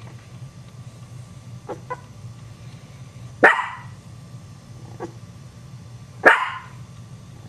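Small dog barking sharply twice, about three seconds apart, with a few faint short yips in between.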